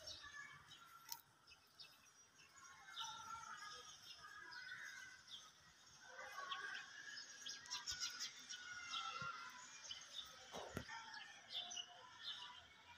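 Faint chirping and twittering of several small birds, short calls scattered irregularly throughout.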